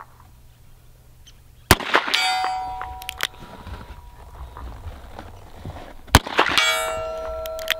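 Two shots from a Smith & Wesson 686 .357 Magnum revolver, about four and a half seconds apart. Each is answered a moment later by a steel target clanging and ringing on, a sign of a hit.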